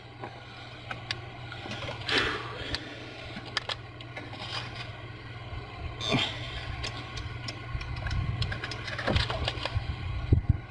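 Scrapes, clicks and knocks of a hand working a ribbed AC drive belt onto the lower pulleys of a 2002 Volkswagen Passat. The handling comes in short bouts, most strongly about two seconds in, about six seconds in, and near the end, over a steady low hum.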